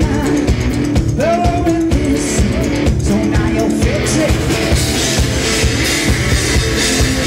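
Live two-piece rock band: distorted electric guitar and drum kit, with a man singing over the first few seconds. About four seconds in the vocal stops and the guitar and drums, with cymbals, carry on as an instrumental passage.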